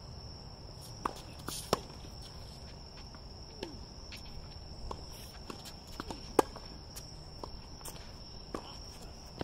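Tennis ball struck with a racket and bouncing on a hard court: a few sharp knocks, the loudest about six seconds in, with a short sneaker squeak. Crickets chirr in a steady high drone throughout.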